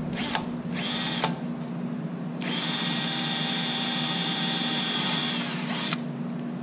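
Cordless drill with a number 40 bit drilling through a nut-plate drill jig into aluminium sheet: two short bursts, then a steady run with a high whine of about three and a half seconds that winds down near the end.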